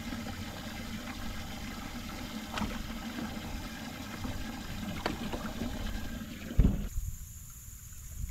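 Water running and splashing in a bass boat's livewell, with a few light clicks. Near the end a single thump sounds, after which the water sound drops away sharply.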